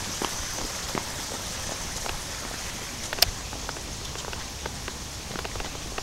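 Light rain pattering, with many small drop ticks close by and one sharper click about three seconds in.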